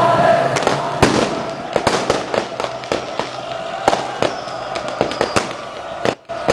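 Fireworks and firecrackers going off in a rapid, irregular series of sharp bangs and cracks over the noise of a large crowd, as the crowd's chanting dies away in the first moment. The sound drops out briefly near the end.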